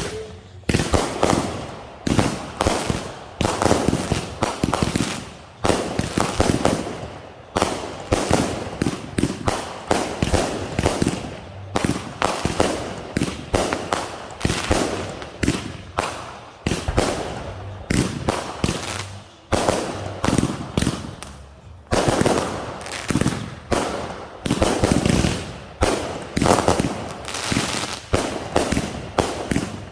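Fireworks going off in a long, rapid run of sharp bangs, often several a second, each with a short crackling tail.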